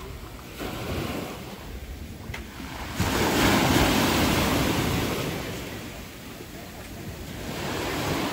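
Sea surf washing on the beach, with wind on the microphone. A louder rush comes in suddenly about three seconds in and dies away over the next few seconds, and a smaller swell follows near the end.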